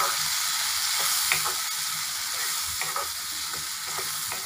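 Chopped capsicum frying in oil in a non-stick kadhai, sizzling steadily while a wooden spatula stirs and scrapes through it, with a few short knocks of the spatula against the pan.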